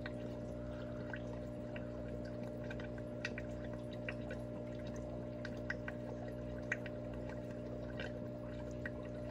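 Aquarium filter running: a steady electrical hum under a faint trickle of water, with a few small drips or bubble pops.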